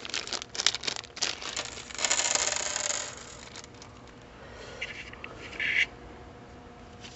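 Parts being handled on a workbench: several sharp clicks and taps in the first second or so, then a scraping rustle for about a second, and a shorter rustle later.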